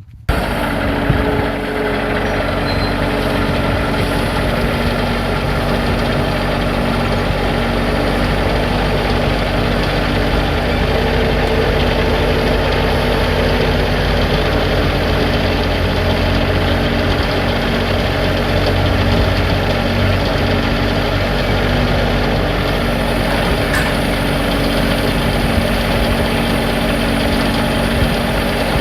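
Engine of a machine fitted with lifting forks, most likely a tractor, running steadily while it lifts a post.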